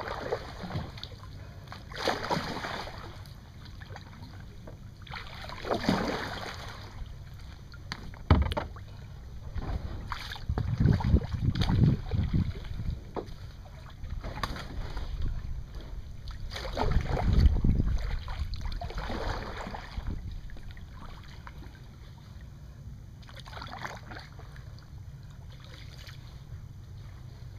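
Kayak paddle strokes: the blades dip and splash, swelling every few seconds. Louder low bumps come near the middle.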